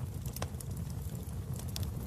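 Wood fire in a fireplace crackling: a few sharp, separate pops and snaps over a steady low rumble of the flames.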